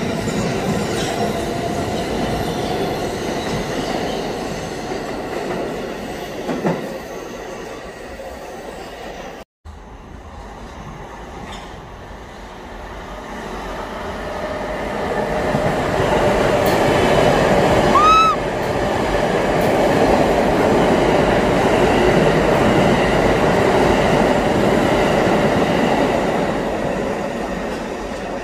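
New York City subway trains: an R160 runs past with its wheels rumbling on the rails, the sound fading away. After a brief break, another train approaches and grows steadily louder, with a short high tone about two-thirds of the way in.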